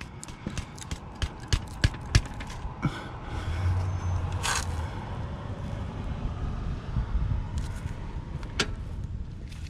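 3/8-inch drive ratchet being worked on a transmission drain plug to break it loose, making a run of sharp clicks and metal taps. These thin out after about three seconds, leaving only a few more, over a steady background noise with a brief low hum about four seconds in.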